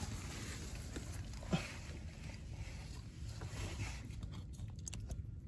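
A hand groping in wet mangrove mud inside a crab burrow: soft squelching and sucking noises, with one brief louder squelch about a second and a half in.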